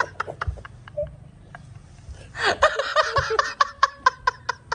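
A man laughing hard in rapid bursts of breathy 'ha-ha' pulses. The bursts fade about a second and a half in, then break out again louder about halfway through.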